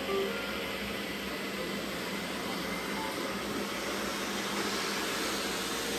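Robot vacuum cleaners running, a steady whirring hiss of suction motors and brushes with a faint hum under it.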